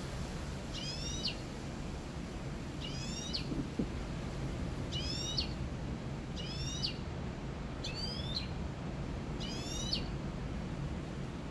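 Caged canary-finch hybrid (a 'mixto') singing: six short phrases, one every second and a half to two seconds, each a quick run of three or four rising whistled notes, over a steady low rumble.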